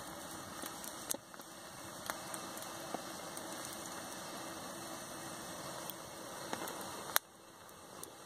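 Twig fire burning in a small perforated metal wood stove under a kettle: a steady crackle and hiss with scattered sharp pops, the loudest about seven seconds in.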